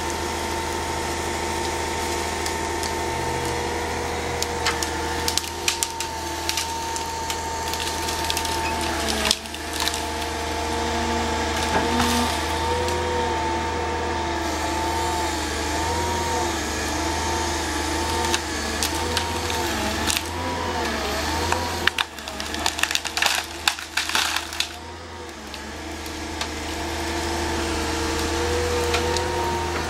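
Excavator-mounted tree shear gripper with saw unit working: the carrier's engine and hydraulics run steadily with a whine that wavers up and down in the middle, while wood cracks and splinters in bursts, loudest about a third of the way in and again after about twenty seconds.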